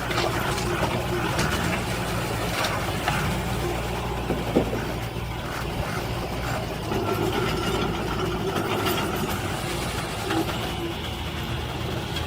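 Diesel engine of a heavy earthmoving machine running steadily, with a few short knocks.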